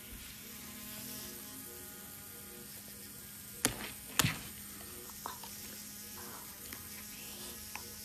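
Electric toothbrush buzzing steadily as it brushes a puppy's teeth, with two sharp knocks about half a second apart midway through and a few fainter clicks.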